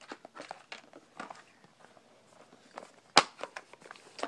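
A small white cardboard box and its packing being handled: scattered soft rustles and light taps, with one sharp knock a little past three seconds in.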